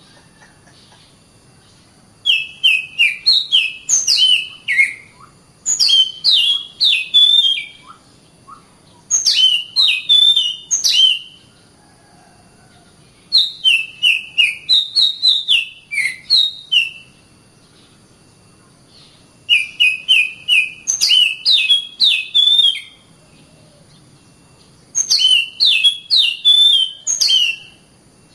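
Oriental magpie-robin (kacer) singing. About six phrases of quick, slurred whistled notes mixed with sharp clicks, each phrase two to three seconds long, with pauses between them.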